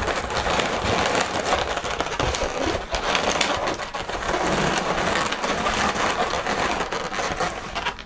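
Latex 260 modelling balloons being twisted and rubbed by hand: a dense, continuous crackling and squeaking of rubber on rubber and skin.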